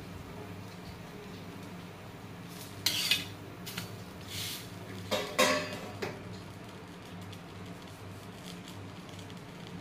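Metal spatula scraping and clinking against a pan as a toasting sandwich is turned over, in two short bursts about three and five seconds in, over a steady low hum.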